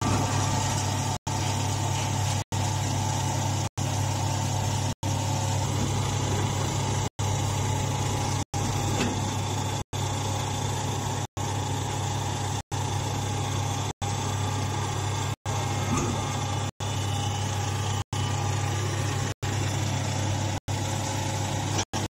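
Hydraulic straw baler's power unit running: a steady low hum from its motor, pump and cooling fan, unchanged throughout. The hum is cut by brief silent dropouts roughly every second and a quarter.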